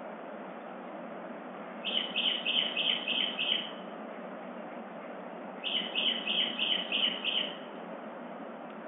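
A songbird singing twice, each song a quick run of about six repeated notes lasting under two seconds, over a steady background hiss.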